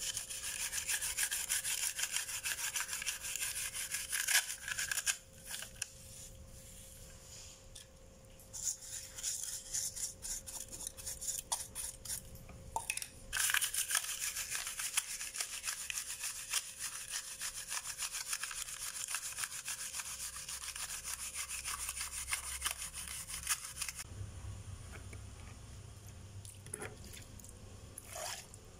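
Small stiff-bristled brush scrubbing the wet filigree of a brass wall hanging in quick back-and-forth strokes, in long runs with short pauses. Near the end, water splashes as it is poured over the brass.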